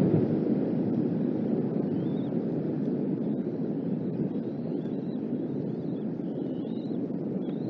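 Strong gusting wind buffeting the nest camera's microphone: a loud, low rushing that swells and slowly eases. Several faint, short, high chirps come through it.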